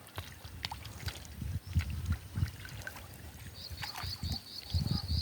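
Pond water trickling and sloshing as ducks forage, with irregular low thuds and small clicks. In the second half comes a quick run of about eight high, evenly spaced peeps, typical of ducklings.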